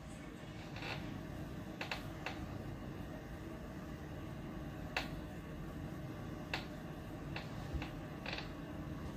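Faint handling and movement noise close to the microphone: a handful of small scattered clicks and light rustles over a low steady room hum, the sharpest click about five seconds in.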